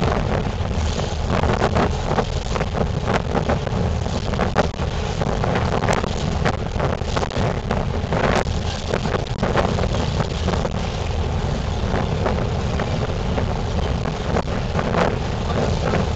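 Wind buffeting the microphone in irregular gusts over a steady low rumble from the whale-watching boat's engine.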